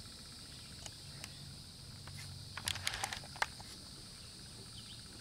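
A steady, high-pitched insect chorus, with a few faint clicks a little past the middle.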